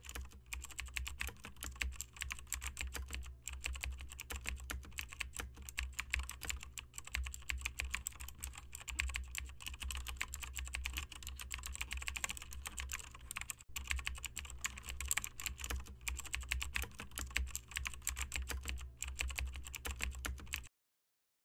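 Continuous rapid typing on a keyboard, dense irregular key clicks over a steady low hum, cutting off suddenly near the end.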